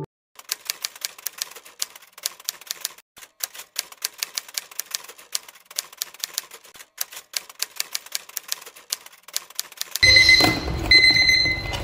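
Typewriter key clicks, fast and irregular, a typing sound effect. About ten seconds in this gives way to a louder digital alarm clock beeping in short repeated pulses.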